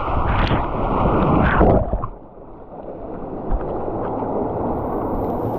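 Water rushing down a fiberglass water slide under a sliding rider, building up, then dropping off sharply about two seconds in as the rider plunges into the pool. After that, choppy pool water sloshes steadily around the camera at the surface.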